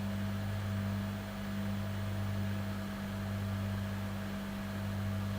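Steady low electrical hum with a fainter higher tone above it and a light hiss underneath.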